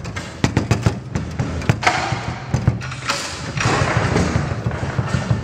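Foosball game in play: irregular sharp knocks and clacks of the ball striking the figures and the table walls, with the rods banging and rattling as they are spun and slid.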